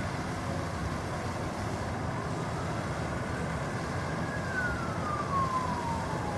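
Emergency vehicle siren wailing, one slow glide falling in pitch over the last two seconds or so, over steady low road and engine noise.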